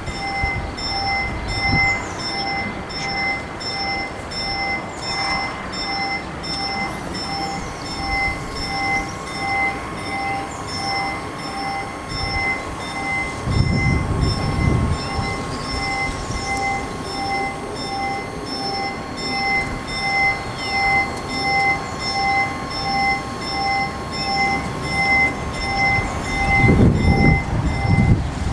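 Italian level crossing warning bell ringing, a steady electronic ding repeating about twice a second, warning that a train is approaching.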